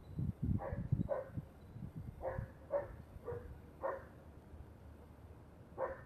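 A dog barking in short single barks, about seven in all, mostly in pairs about half a second apart, with a longer pause before the last one near the end. Low rumbling thumps sit underneath, heaviest in the first second or so.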